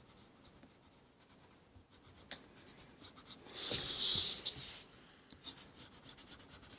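Coloured pencil scratching across smooth paper in quick short strokes, with a longer, louder stroke about three and a half seconds in.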